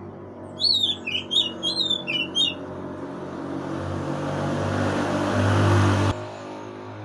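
Oriental magpie-robin giving a quick run of about eight sharp chirps over two seconds. A hissing noise then swells for about three seconds and cuts off suddenly.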